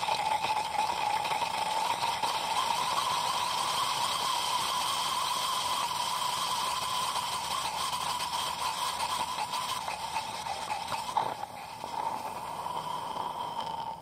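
A fruit snack burning violently in molten sodium chlorate in a glass test tube, the screaming gummy bear reaction: a steady rushing hiss with a whistling tone, crackling throughout, weakening near the end. The sound comes from the sugar combusting in the oxygen released as the hot chlorate decomposes.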